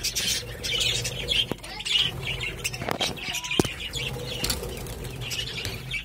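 A flock of budgerigars chirping and chattering while feeding on millet, with wings fluttering as birds come and go and a few sharp clicks.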